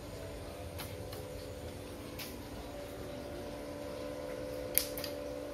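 Steady hum with a couple of held tones from an Uchiha inverter welding machine switched on and idling before the arc is struck, with a few sharp ticks, the loudest a single click near the end.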